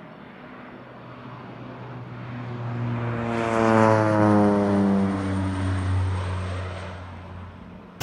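Single-engine agricultural spray plane making a low pass overhead: its engine and propeller grow louder, peak about four seconds in, drop in pitch as it goes by, then fade away.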